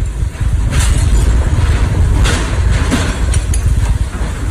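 Tornado-force wind blowing hard against the phone's microphone, a heavy low rumble with rushing gusts surging about one and two seconds in, and a few sharp clicks and clatters of debris.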